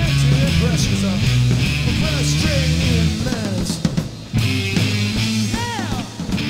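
Live rock band playing: electric guitar with bent notes over bass guitar and drum kit, with a brief stop about four seconds in before the band comes back in.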